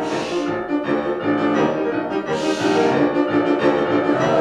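Piano playing a steady stream of sustained notes, with two short rushes of hiss, one near the start and one about two and a half seconds in.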